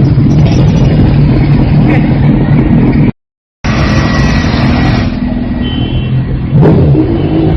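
Honda Navi mini motorbike engine running steadily, with a half-second break of total silence about three seconds in.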